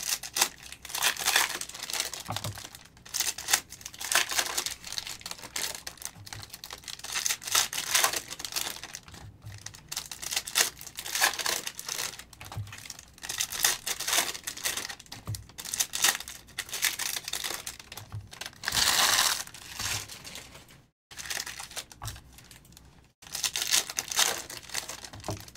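Foil trading-card pack wrappers crinkling and tearing as packs are opened, with cards being handled and shuffled. The crinkling comes in many short, irregular bursts, one stretch lasting about a second roughly three quarters of the way through.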